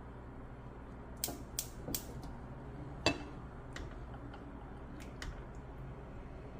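Scattered light clicks and taps from kitchen work: three quick ones, a sharper knock about three seconds in, and two fainter clicks near the end, over a low steady hum.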